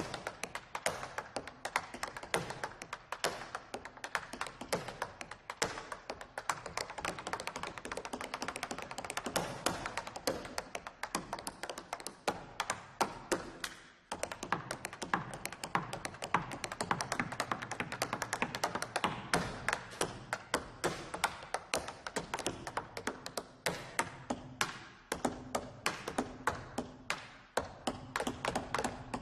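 Tap shoes striking a miked tap platform in fast, rhythmic swing patterns of dense clicks and heavier heel thumps, with a brief break about halfway through.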